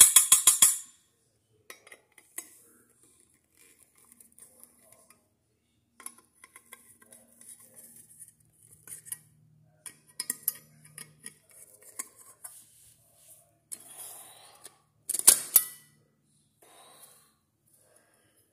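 Metal ceiling-fan parts, the chrome housing and its mounting bracket, clinking and knocking as they are worked apart by hand. A quick run of even clicks at the start, then scattered light taps and clinks, with a louder metallic clatter about fifteen seconds in.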